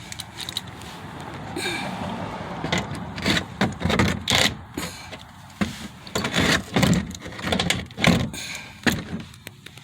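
Plastic fender liner being worked loose from a pickup's wheel well: an irregular run of knocks, clicks and scraping as it is handled and pulled, with a rustling scrape building over the first couple of seconds.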